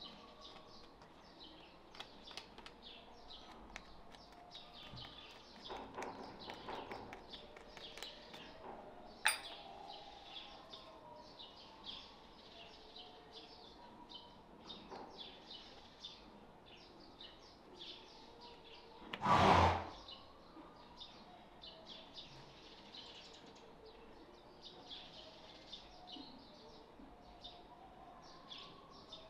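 Small birds chirping faintly in the background, with a sharp click about a third of the way in and one louder half-second noise about two-thirds of the way through.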